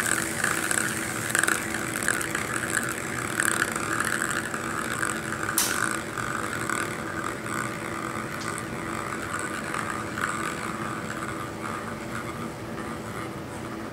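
Ping pong ball rolling fast around the inside of an acrylic bowl, rattling and ticking over the metal electrode strips, with a steady hum underneath. A sharp click comes about five and a half seconds in, and the rolling slowly dies away as the ball loses speed.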